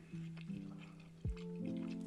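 Background music playing held chords, with a low falling bass note a little over a second in, over faint wet chewing and squishing of food in cheese sauce.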